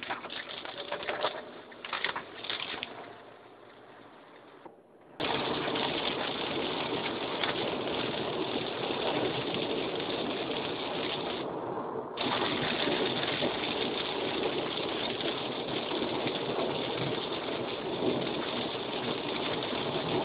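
Heavy rain on a car, heard from inside the cabin. At first scattered raindrops tap on the windshield, then about five seconds in the sound switches suddenly to a loud, steady rush of downpour that continues.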